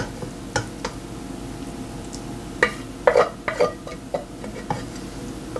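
Wooden spoon scraping and knocking against a stainless steel pot and a glass bowl while serving thick peach jam: a few scattered taps, with a busier cluster of knocks about three seconds in.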